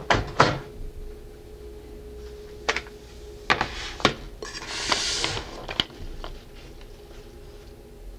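Light clicks and knocks of baking tools and a metal tray being handled on a kitchen work surface, with a short sliding scrape about halfway through.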